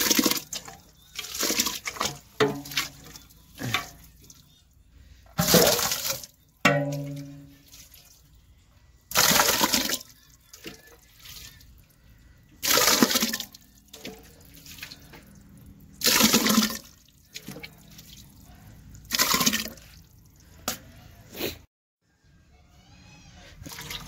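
Wet pig feed, a mash of cooked rice and chopped green leaves, sloshing and squelching as a hand stirs it in a large metal pot, in strokes of about a second that come roughly every three seconds.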